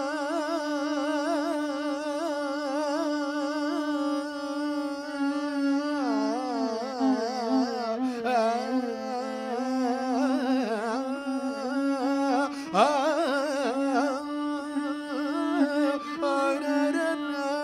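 Indian classical music: an ornamented melody of wavering, sliding notes over a steady held drone, with a sharp upward slide about three-quarters of the way through.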